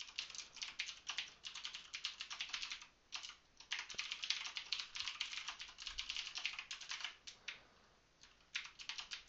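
Computer keyboard being typed on in quick runs of key clicks, with brief pauses about three seconds in and again about eight seconds in.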